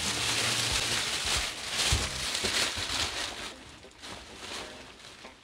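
Plastic packaging bag rustling and crinkling as it is pulled off a massage seat cushion, with a few sharp crackles; it dies down after about three and a half seconds.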